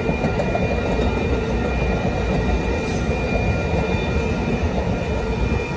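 Amtrak Pacific Surfliner passenger train's bilevel cars rolling past: a loud, steady rumble of wheels on rail, with a thin steady high tone running over it.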